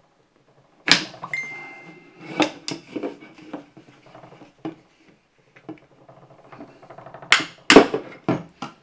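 Sharp knocks, clicks and clatter of objects being handled as someone struggles to open something, loudest in a cluster near the end. A brief steady high tone sounds about a second in.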